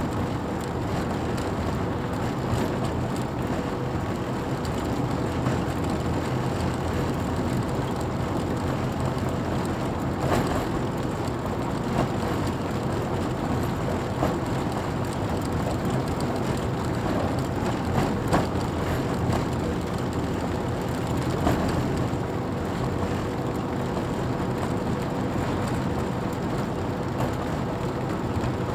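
A car driving along at steady speed, heard from inside: a steady low engine hum with road and tyre noise, and a few brief knocks.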